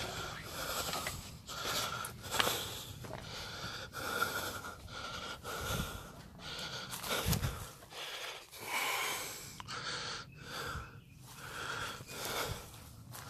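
A person breathing hard and fast with a slight wheeze, about one breath a second, while walking, with a few footsteps on dry ground.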